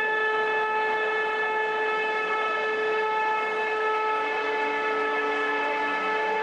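Music opening on one long held chord of steady tones, with lower notes joining about four seconds in and again about six seconds in.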